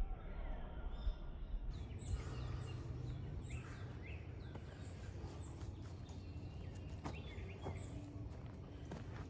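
Small birds chirping repeatedly over a low steady outdoor rumble, with a few sharp snaps or clicks in the second half.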